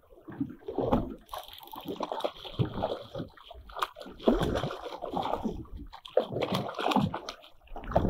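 A hooked fish splashing at the surface beside the boat in irregular bursts as it fights the line.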